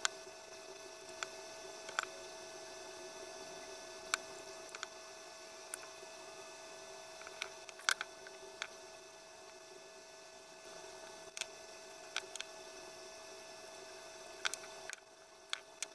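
Steady electrical hum with a few constant tones, overlaid by scattered light clicks and taps as hands handle a hard painted plastic part, masking tape and a hobby knife. The hum drops away about a second before the end.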